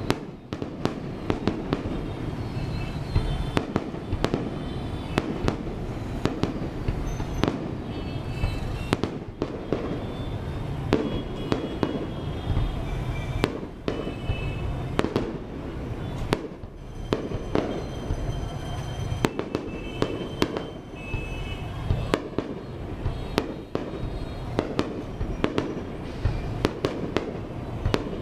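Fireworks display in full barrage: shells bursting in quick succession, sharp bangs several times a second over a continuous low rumble of explosions and their echoes.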